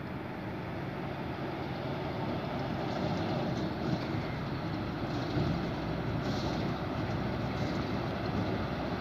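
Heavy diesel trucks driving on a dirt road, their engines running with a steady rumble that grows gradually louder as they come closer.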